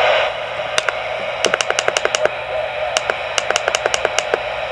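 CB radio receiver hiss from the speaker, with a run of quick clicks as the channel selector is stepped through the channels. The clicks come faster in the second half.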